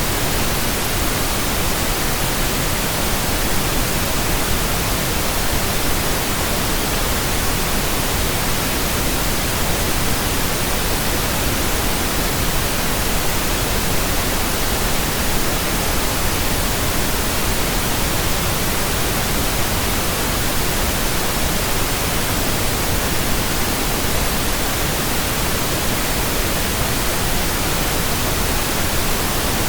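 Steady synthetic pink noise: an even, unchanging hiss spread across the whole range of pitch.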